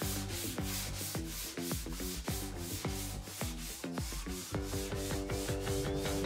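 Sandpaper on a hand sanding block rubbed back and forth along the edge of a wooden board in quick, regular strokes, rounding the edge over. Background music plays underneath.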